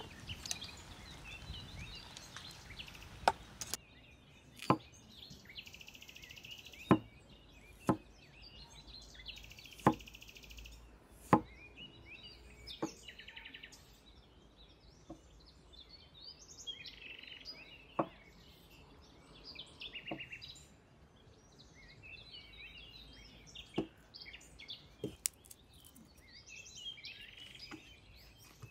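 Cleaver blade knocking on a thick round wooden chopping board while cutting garlic: single sharp chops, irregular and a second or two apart, with birds chirping faintly in the background.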